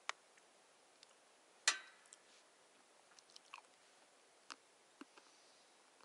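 Someone eating a snack: a few sharp crunches and clicks of biting and chewing, spaced out, the loudest a little under two seconds in.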